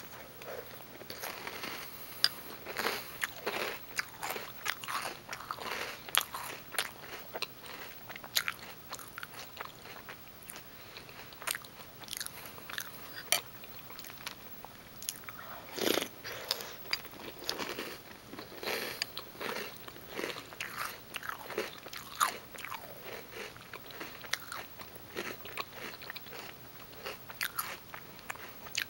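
A person chewing a mouthful of Reese's Peanut Butter Puffs cereal, with many irregular crunches.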